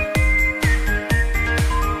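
Electronic background music with a steady beat about twice a second and a synth melody of stepping high notes.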